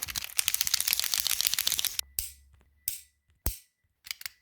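Fidget toys clicking and rattling rapidly for about two seconds, then a handful of separate clicks.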